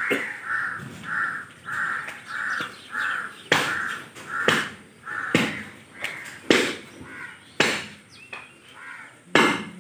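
A crow cawing over and over, about two caws a second, for the first half. Sharp knocks come through the second half, about once a second, with the loudest near the end.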